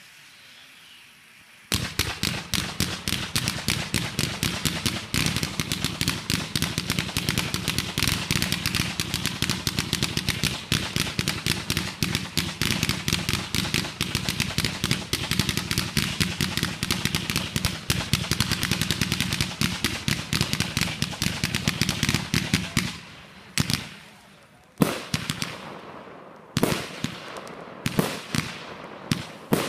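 Fireworks display: a ground fountain hissing faintly, then about two seconds in a battery starts firing a rapid, continuous crackle of shots sending up fans of green comets for about twenty seconds. After it stops, separate louder bangs of aerial bursts follow, several seconds apart.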